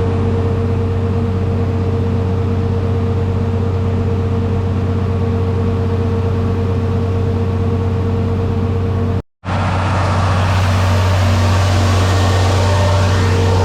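Heavy farm machine's engine running steadily under load, a constant low drone with a steady whine above it. It drops out for an instant about nine seconds in, then carries on slightly louder with more hiss.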